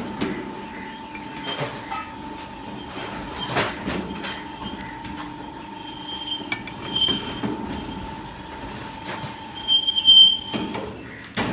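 Semi-automatic chikki cutting machine running: a steady whine with scattered knocks, and short high metallic squeals about seven seconds in and again near ten seconds, the loudest moments.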